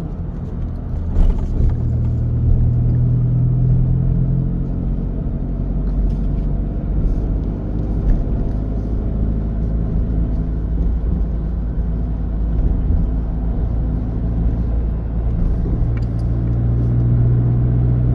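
Steady low rumble of a motor vehicle on the move, engine and road noise with a constant low hum.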